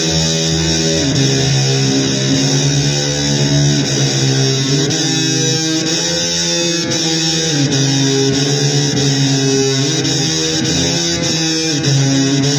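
Electric guitar playing blues, held notes with bends sliding up and down in pitch.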